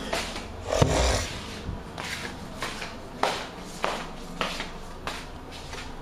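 Handling noise from a hand-held phone: a string of light knocks and rubs on the microphone, the loudest, with a dull thud, about a second in.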